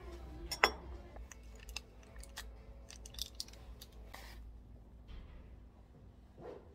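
A sharp china clink about half a second in, then the foil lid of a small single-serve milk portion crackling in a run of small ticks as it is peeled off.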